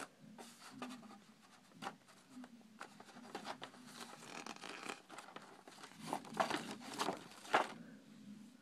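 A folded paper instruction sheet being handled and unfolded, rustling and crinkling, with a few sharper crackles toward the end.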